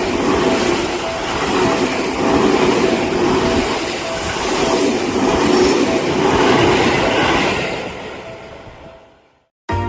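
A train running past on the rails, wheels clattering in a rhythm with a steady tone under it, fading away over the last couple of seconds before cutting to silence. Music starts at the very end.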